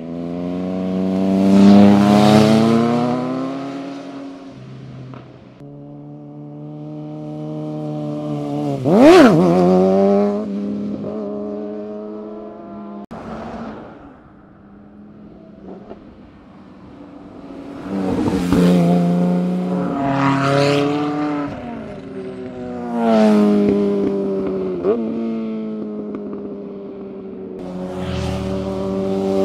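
Sports cars and sport motorcycles passing at speed one after another, about half a dozen times. Each engine revs up and down through the corners, and its pitch drops sharply as it goes by.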